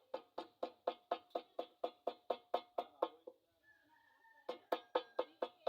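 Hammer blows on steel against an anvil, about four strikes a second, each with a short metallic ring. The strikes stop a little after three seconds and start again about a second later.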